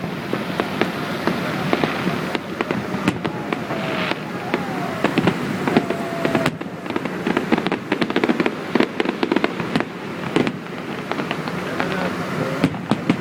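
Fireworks going off: many sharp bangs and crackles in quick succession, thickest through the middle, over a continuous rumbling background.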